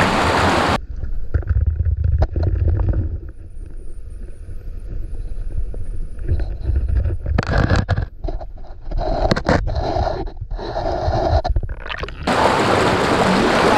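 Splashing as a spearfisher dives headfirst into a stream, then muffled underwater sound heard through the camera: a low rumble with scattered knocks as he swims among the rocks. About a second and a half before the end a loud rush of water noise returns.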